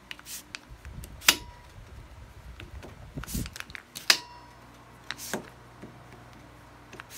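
Adjustable rifle stock being slid along a buffer tube, its lock pin clicking into the position holes: a handful of sharp clicks with handling and sliding noise between, the loudest about a second in.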